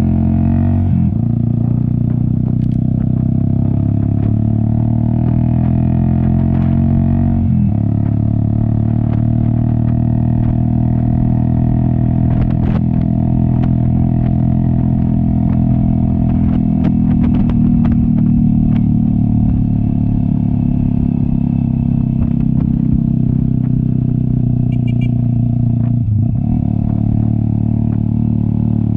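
Cafe 400 motorcycle with an aftermarket SC Project exhaust running steadily under way uphill. The engine note breaks and shifts briefly about a second in, about seven seconds in and near the end. Scattered clicks and rattles come in the middle.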